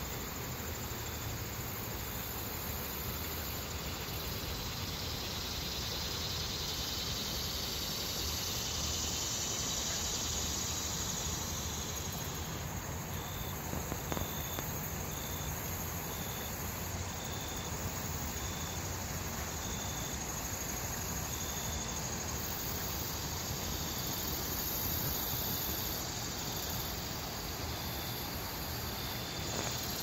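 River water running over shallow rocky riffles, a steady rush. Insects chirping faintly on top, short high chirps repeating about once a second from about halfway in.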